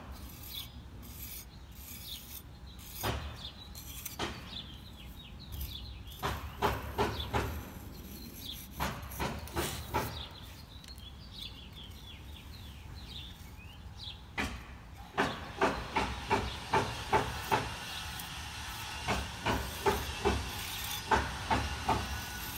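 Repeated short scraping and rubbing strokes of hand work on a cast stone balustrade base, scattered at first and coming about two a second through the last several seconds, over a steady hiss.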